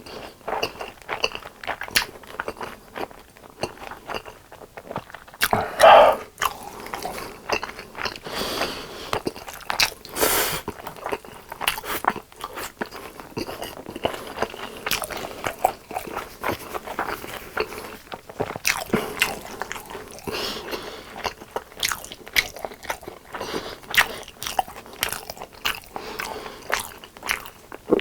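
Close-miked eating of crispy fried chicken: crunching bites and chewing, with many short crisp crackles and one louder, longer sound about six seconds in.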